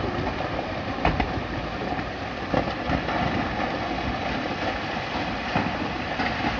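Loose rock and debris tumbling down a steep scree slope at a landslide, a steady rumbling clatter with a few sharper cracks of striking stones about one, two and a half, and five and a half seconds in.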